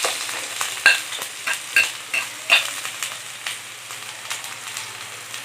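Chopped onion sizzling in hot oil in a frying pan while a spatula stirs it, knocking against the pan in a string of sharp clicks, most of them in the first three seconds.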